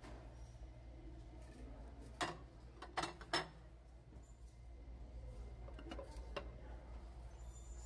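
Ceramic plates and bowls clinking against each other and a glass shelf as they are handled: three sharp clinks a little past two seconds in and two fainter ones near six seconds, over a steady low hum.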